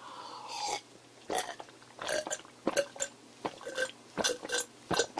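A man gulping down a drink from a glass: a run of swallows, about two or three a second.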